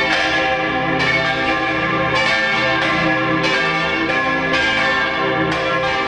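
Church bells in a tower pealing together, loud enough to cover one's ears: many ringing tones overlap as fresh strokes come about once a second, part of a long full peal.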